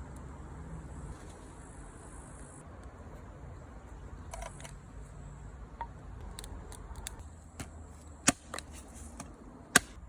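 Scattered light clicks and knocks, ending in two sharp, louder clicks near the end, over a steady low rumble and a faint high hiss that comes and goes.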